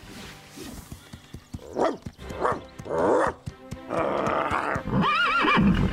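Cartoon animal sound effects over background music: a dog's cries and a loud open-mouthed call from about four seconds in, then a quavering horse whinny near the end.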